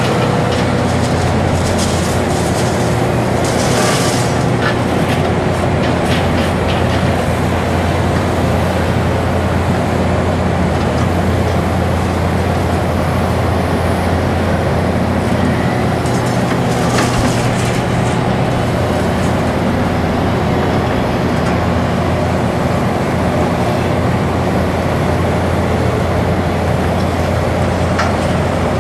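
Heavy excavator diesel engine running steadily under work, with a few brief harsh noises about four seconds in, midway and near the end.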